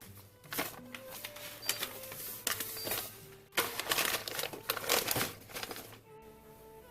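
Plastic packaging crinkling and rustling in two bouts, over soft background music.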